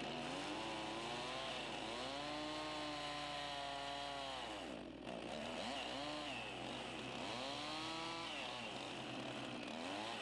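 Chainsaw cutting a tenon on the end of a log post. Its engine pitch rises and falls several times as it works, with a brief dip about five seconds in.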